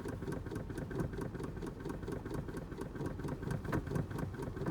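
2007 Dodge Caravan's 3.3-litre V6 idling steadily, with light irregular clicks and knocks over it.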